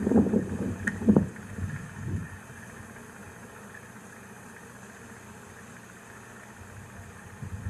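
A few short rustling noises and one sharp click in the first second or so, then a steady low hiss of wind in the woods.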